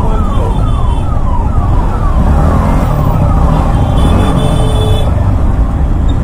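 A siren sounding in quick falling sweeps, about two a second, which stops a little past halfway. Under it runs a steady low rumble of motorcycle engine and wind on the rider's microphone in slow traffic.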